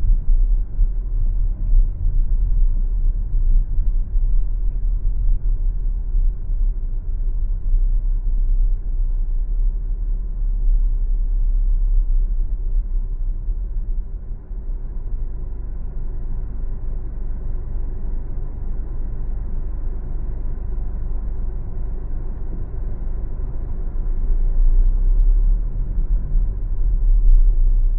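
Car driving on a city street: a steady, low road and tyre rumble. It eases somewhat about halfway through and grows louder again near the end.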